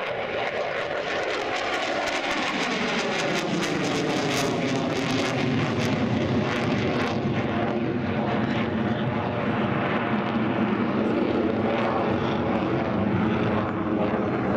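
Saab JAS-39 Gripen fighter's single turbofan engine in a display pass: a jet roar whose pitch falls steadily through the first half, with a crackling rasp around the middle, then holding at a steady lower roar.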